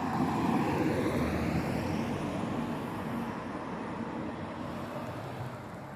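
Road traffic noise from the adjacent expressway: a vehicle's tyre and engine noise swells to its loudest about half a second in, then fades steadily as it passes.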